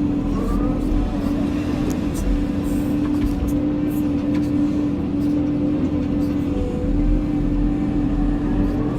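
Cat 320 hydraulic excavator running steadily, a constant engine hum with a low rumble, with a few short high clicks scattered through.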